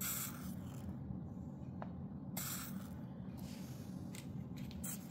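Hot soldering-iron tip at about 350 °C dipped in a glass of water, hissing in short sizzles three times: at the start, about halfway and near the end.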